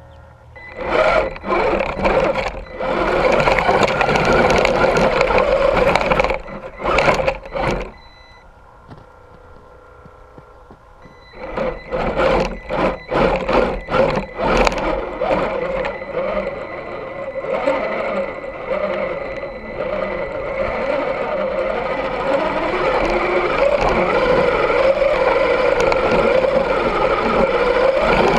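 Axial SCX10 II RC crawler's electric motor and geared drivetrain whining under throttle as it drives through snow, heard up close from a camera on the truck. It goes in bursts for the first several seconds, drops back for about three seconds, then returns in short bursts and settles into a long steady run.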